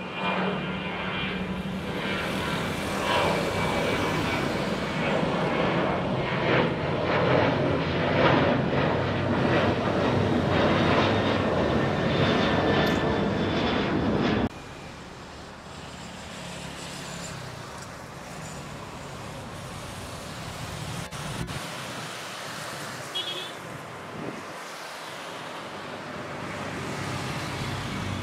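Boeing 737-800's CFM56-7B jet engines at take-off power as the airliner climbs out, a loud steady roar. It cuts off abruptly about halfway through, leaving only faint steady background noise.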